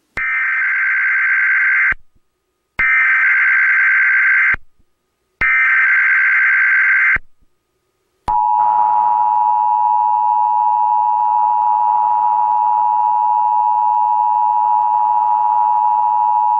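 Emergency Alert System opening: three bursts of SAME digital header data, each a harsh electronic warble just under two seconds long with short gaps between. These are followed by the EAS two-tone attention signal, a steady dual tone held about eight seconds.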